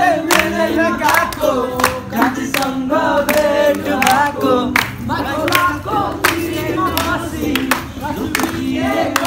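A group of voices singing together, with hand claps and music behind them.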